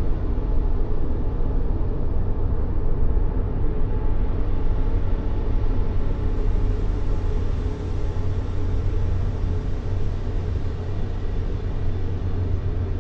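Continuous white noise for baby sleep, a steady low rumbling hiss weighted toward the bass, with no change or break.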